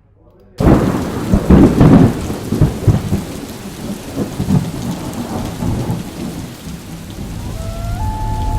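Thunderstorm sound effect: steady heavy rain with rumbles of thunder, cutting in abruptly about half a second in, the loudest rumbles in the first few seconds.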